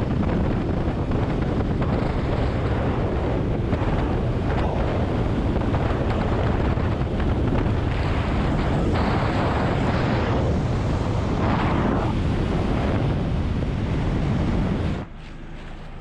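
Wind rushing over a helmet-camera microphone on a moving motorcycle, a steady loud noise with the Kawasaki Versys 650's engine under it. It drops away abruptly about fifteen seconds in.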